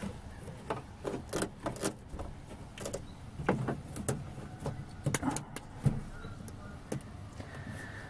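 Plastic water-barrier sheet on a van's inner door panel crinkling and rustling as it is pressed back into place, with scattered light clicks and taps.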